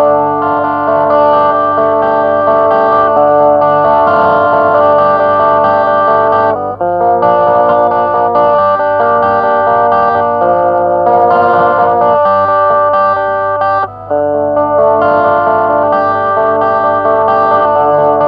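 Jackson JS22 electric guitar on its bridge pickup played through the overdrive channel of a Joyo MA10E small battery-powered practice amp: sustained distorted chords ringing on, with two short breaks about six and a half and fourteen seconds in.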